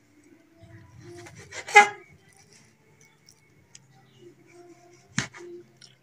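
A kitchen knife cutting the crusts off slices of white bread on a plastic chopping board. Faint scratchy crunching of the crust, a short squeak a little under two seconds in, and a sharp knock of the blade on the board about five seconds in.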